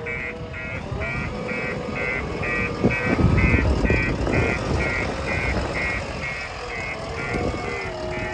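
Reversing alarm on a JCB 3DX backhoe loader, beeping steadily about twice a second over its diesel engine running. The engine grows louder around three to four seconds in.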